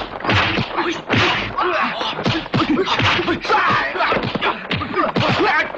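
Kung fu fight sound effects: a rapid run of dubbed punch and kick whacks and whooshes, about two a second, with fighters' shouts in between.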